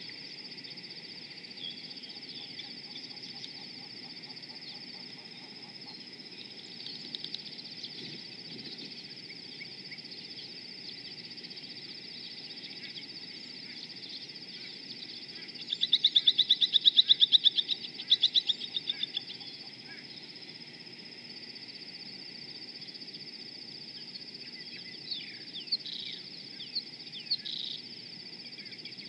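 Rüppell's long-tailed starling giving a fast, harsh rattling churr for a few seconds just past the middle, then a few short calls near the end. A steady high-pitched whine runs underneath.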